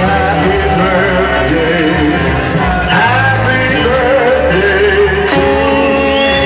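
Loud music with a singing voice and a steady bass line; about five seconds in it changes to long held notes.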